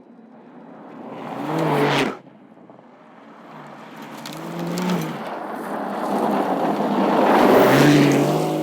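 Porsche 911 Dakar's twin-turbo flat-six engine accelerating, its pitch rising, over a rush of driving noise. The first run-up is cut off suddenly about two seconds in, and a second, longer one builds louder toward the end.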